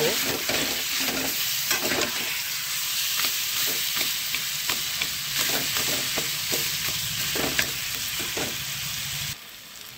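Mashed Indian olives sizzling in hot mustard oil in an aluminium kadai, with a metal spatula scraping and tapping against the pan as they are stirred. The sizzle drops away suddenly near the end.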